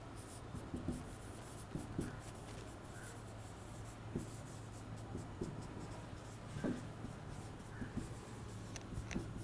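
Marker pen writing on a whiteboard: short, faint scratching strokes with a few brief squeaks, over a steady low hum.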